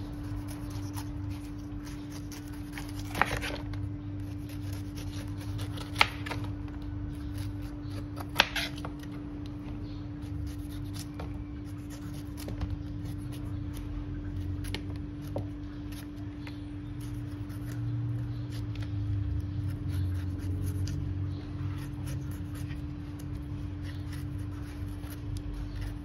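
Kitchen knife cutting the skin and eyes off a fresh pineapple: repeated short, crisp slicing strokes through the rind, with three sharp knocks about 3, 6 and 8 seconds in. A steady hum runs underneath.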